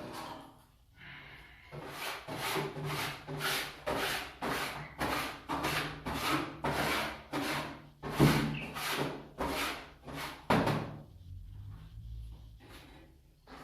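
Rhythmic scraping strokes, about two a second, as the floor of a bird cage is scraped clean of dirt and droppings. The strokes stop about eleven seconds in.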